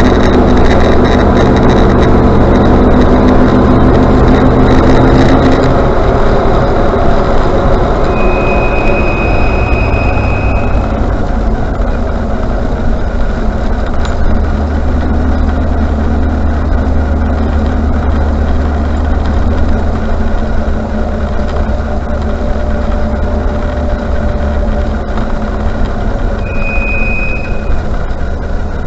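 Range Rover Classic on the move, its engine and road noise running throughout and louder for the first six seconds. Twice a high-pitched brake squeal rings out: once for about two and a half seconds about eight seconds in, and briefly near the end.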